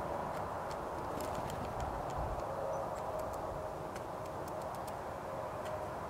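Scattered light ticks and clicks over a steady outdoor background noise.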